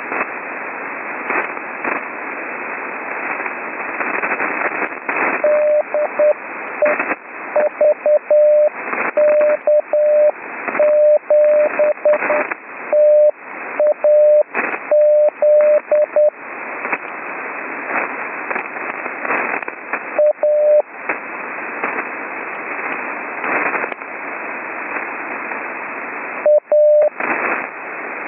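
Morse code (CW) sent slowly by hand as a keyed beeping tone, heard through an HF amateur radio receiver: practice on the letters A, X, S, E and T. The beeps come in a long run of dots and dashes, then two short groups after pauses. Under them is steady band hiss with crackling static crashes, from rough HF conditions during a lightning storm.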